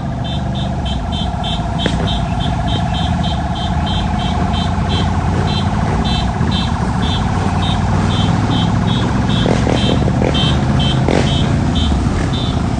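Motorbike engines running as a pack of bikes rides along together, with a rapid high-pitched beeping repeating about four times a second over the engine noise.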